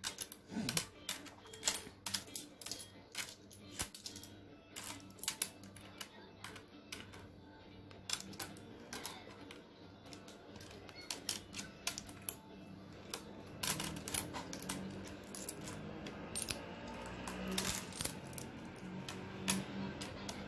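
Dirham coins clinking and tapping on a glass tabletop as they are picked up and set down one at a time while being counted: many short, irregular clicks.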